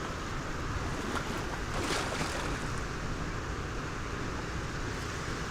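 Small waves washing onto a sandy beach: a steady rushing of surf with one brighter wash about two seconds in.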